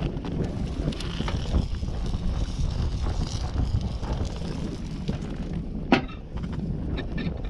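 Wind buffeting the microphone: a dense, steady low rumble with crackling gusts, and one sharp click about six seconds in.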